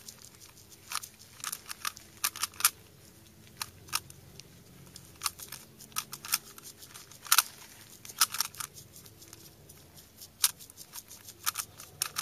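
Plastic Rubik's Cube being twisted fast by hand: irregular sharp clicks of the layers turning, in quick runs with short pauses.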